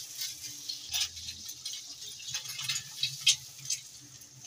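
Egg-soaked bread slices frying in shallow hot oil, irregular crackling and spitting pops over a faint sizzle.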